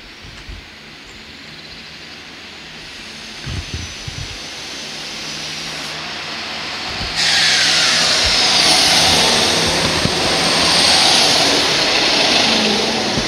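Regional passenger train approaching along the platform, its running noise growing steadily louder, then jumping suddenly louder about seven seconds in as it runs past close by, with high whining tones over the rush of wheels on rail.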